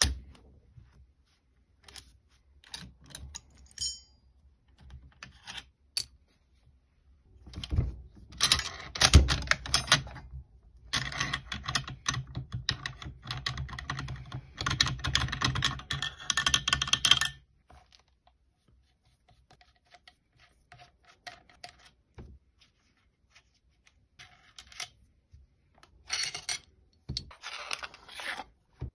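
Steel parts of an M1 Garand rifle clicking, sliding and knocking together as the rifle is taken apart by hand. There is a long stretch of rapid metal clatter through the middle, and scattered clicks before and after it.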